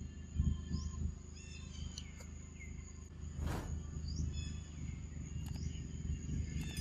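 Outdoor forest ambience: a steady high insect drone with a bird's short chirps repeating about once a second, over a low rumble. A brief rustle comes about halfway through.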